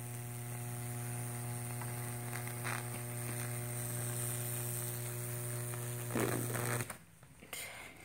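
Microwave oven transformer buzzing with a steady mains hum as its high voltage arcs and burns through a board wetted with baking soda solution, then cut off abruptly about seven seconds in.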